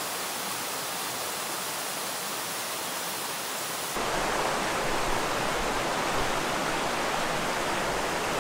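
Steady rush of a fast mountain stream, stepping up louder and fuller about four seconds in.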